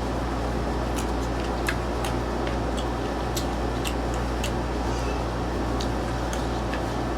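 Chewing of hard, unripe Indian mango: scattered sharp crunches and mouth clicks over a steady background hum.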